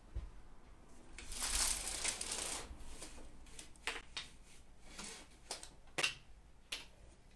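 A window blind being opened: a rattling, rustling clatter lasting a second or two, then a few separate sharp clicks.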